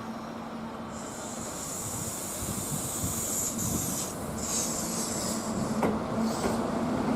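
Kintetsu limited express electric train at the station: a steady hum with a high hiss over it, then near the end the motor whine starts rising as the train gets under way.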